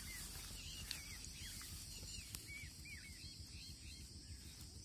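A small bird calling faintly, a run of short down-slurred chirps at about two or three a second that stops a little past halfway. Behind it are a steady high hiss and a low rumble.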